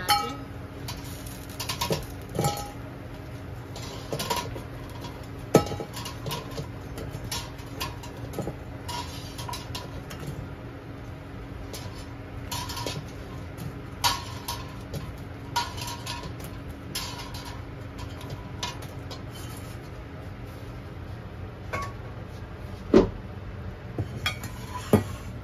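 Chicken wings deep-frying in a wok of hot oil, sizzling steadily, while a metal slotted skimmer clinks and scrapes against the wok and its wire draining rack as the wings are lifted out; the sharpest clinks come about five seconds in and twice near the end.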